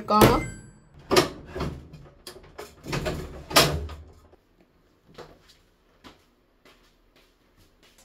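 Knocks and thumps from handling a top-loading washing machine's lid and cabinet, several in the first four seconds with a low rumble under them, then only a few faint clicks. The machine is being worked on because its 'dE' lid error is stopping the spin.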